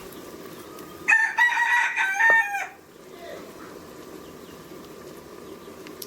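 A rooster crowing once, about a second in, a single call of roughly a second and a half that drops in pitch at the end.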